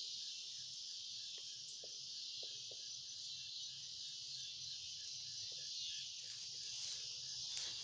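Steady high-pitched chorus of insects, with a fainter, lower chirp repeating at an even pace beneath it.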